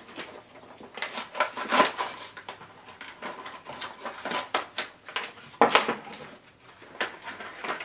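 Plastic toy packaging crinkling and crackling in irregular bursts as small hands grip and pull at the wrapper.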